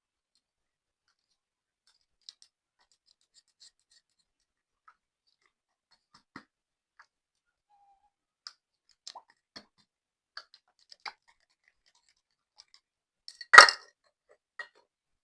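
Slime being handled: sparse small clicks and pops, with one louder, brief crackling burst near the end.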